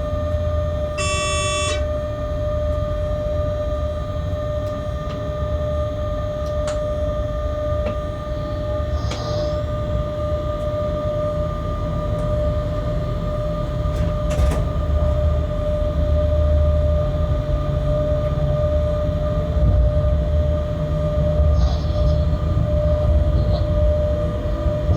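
Freight train locomotive cab in motion: a steady low running rumble with a constant whine throughout. A short electronic beep sounds about a second in.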